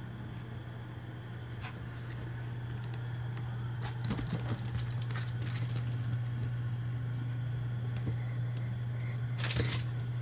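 Two small dogs play-wrestling: scuffling and scrabbling, loudest about four seconds in and again near the end, over a steady low hum.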